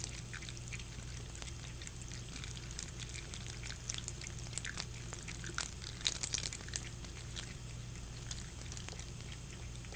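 A cat lapping water from a sink: small, irregular wet clicks and splashes over a steady low hum.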